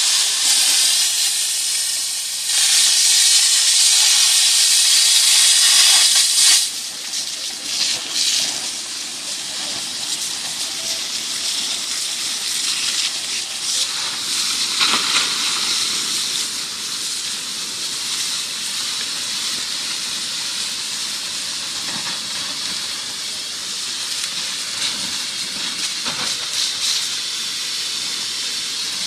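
Firefighting hose nozzle spraying water onto burning vegetation with a loud, steady hiss. The hiss is strongest for the first six seconds or so, then drops suddenly to a lower, steadier hiss.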